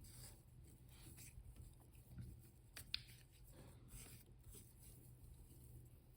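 Near silence, with faint rustles of hands wrapping chenille around a fly hook and stroking its fibres back, and one small sharp click about three seconds in.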